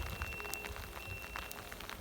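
Wet, rain-like snow pattering in many small irregular ticks over a low wind rumble on the microphone. A faint steady high tone sounds through most of it.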